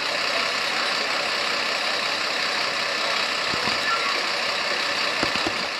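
Iveco Eurocargo fire engine's diesel engine idling, a steady even drone, with a few faint knocks near the end.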